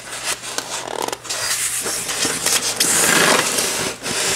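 Packing material being pulled out of a cardboard box: cardboard and styrofoam scraping and rubbing against each other, with many small knocks. The scraping is loudest about three seconds in.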